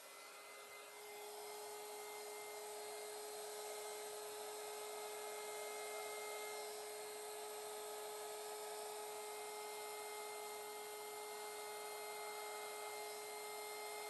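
Handheld electric heat gun running steadily, a faint rush of blowing air with a constant whine, as it heats wet epoxy resin to make it flow. It swells slightly over the first second or two, then holds even.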